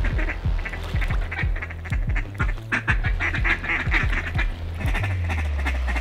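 Ducks quacking repeatedly over background music with a deep bass line and a steady beat.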